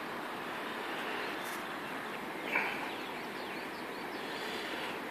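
Steady rushing of a fast-flowing river, with a short high chirp about two and a half seconds in.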